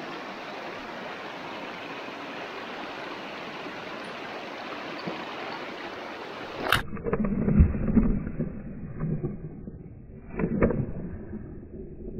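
Creek water rushing steadily over rocks underfoot. About two-thirds of the way in, the sound suddenly turns muffled, with heavy knocks, thumps and splashing: the hiker slipping on the rocks and falling into the creek with his pack.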